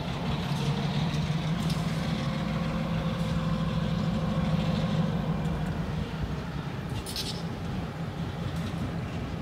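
Small diesel locomotive's engine running with a steady low drone that eases a little after about six seconds, with a short hiss about seven seconds in.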